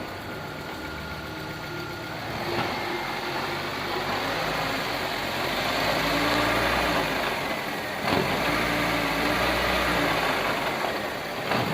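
Fiat Strada 1.8's engine running with the gearbox making noise while the car stands still, as the gears are worked through: the drone grows louder in steps, with a clunk about eight seconds in and another near the end. The mechanic puts the noise down to a worn input-shaft bearing in the gearbox.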